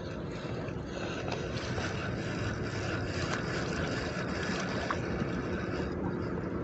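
Steady rushing wind noise on the microphone at the seaside, with a faint low hum underneath.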